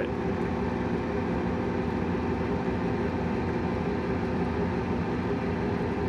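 Gas furnace draft inducer blower running at start-up: a steady hum with several constant tones. It is building the draft pressure needed to close the diaphragm pressure switch before the igniter is allowed on.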